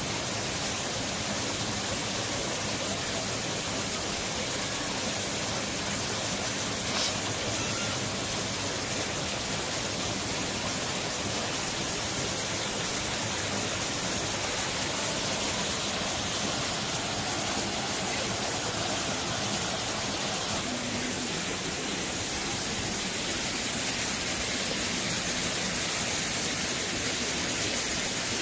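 Steady rushing of water flowing into an elephant pool, an even hiss that does not change.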